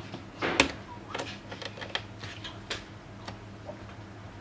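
Scattered light clicks and taps of hands working on a laptop's screen lid, its panel and small corner screws being handled, with the loudest tap about half a second in.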